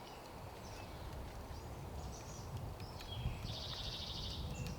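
Quiet outdoor background with a low rumble and a few faint chirps, and a short, rapid, buzzy bird trill lasting about a second, starting around three and a half seconds in.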